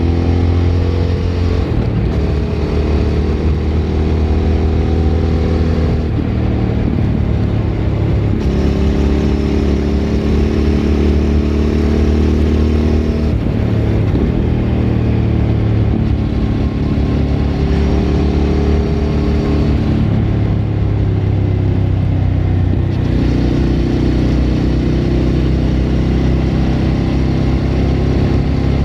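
Suzuki V-Strom 1000's V-twin engine running through a Remus aftermarket exhaust while riding. The engine note holds steady for a few seconds at a time, then steps to a new pitch, about half a dozen times.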